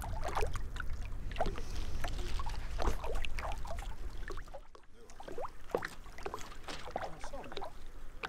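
Small choppy waves lapping and splashing in irregular little slaps. Wind rumbles on the microphone until about halfway through, then drops away.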